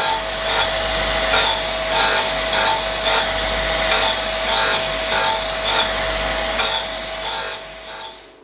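Homemade surface grinder running: a steady motor and wheel whine with a grinding noise that swells and falls about every 0.6 s. It dies away near the end.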